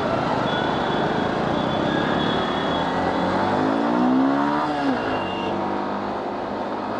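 Motorcycle riding through city traffic: a steady rush of engine, wind and traffic noise. About three seconds in, an engine revs up in pitch and eases off again, while the bike gathers speed.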